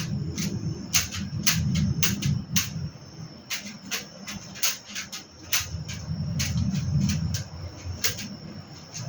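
Low rumble of a passing train that swells and fades twice, with many irregular sharp clicks over it.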